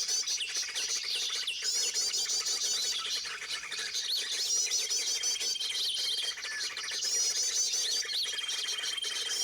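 Many small birds chirping and calling together, with a fast, high trilled phrase that comes back every two to three seconds and a thin, steady, whistle-like note held for about a second at a time.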